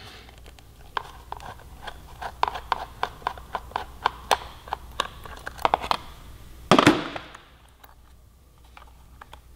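A long Phillips screwdriver backing a screw out of a plastic motorcycle rear fender panel: a run of small irregular clicks and plastic creaks as the screw turns and the panel flexes. A louder scrape of about half a second comes a little before seven seconds in.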